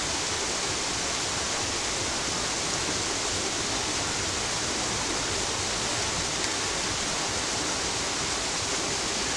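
A steady, even rushing hiss with no breaks, strokes or changes in level.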